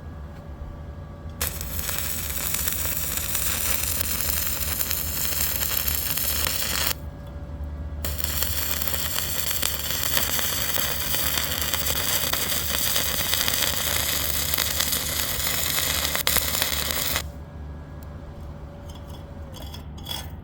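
Stick-welding arc crackling and hissing in two runs: the first begins about a second and a half in and lasts about five seconds, and the second, after a one-second break, lasts about nine seconds. A steady low hum runs underneath, and a few light clicks come near the end.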